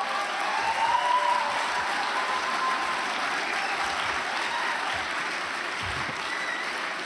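A theatre audience applauding, loudest about a second in, with a few voices rising over the clapping.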